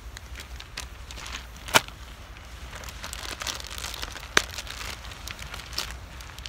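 Plastic packaging crinkling as it is handled, with two sharp clicks about two and a half seconds apart.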